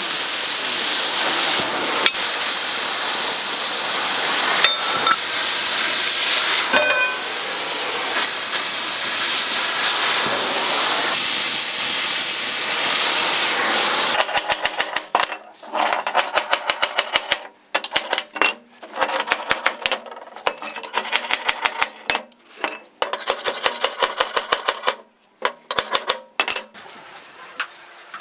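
Oxy-fuel gas cutting torch hissing steadily, then about halfway through the hiss stops and gives way to the choppy, stop-start crackle of stick arc welding on steel.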